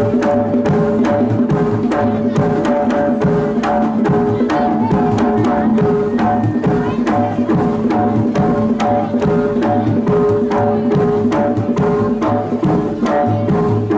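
Jaranan gamelan accompaniment: hand-drum strokes at about four a second over held melodic tones, playing steadily.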